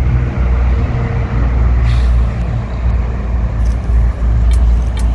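Wind buffeting the microphone as a loud, fluctuating low rumble, with a few light clicks near the end.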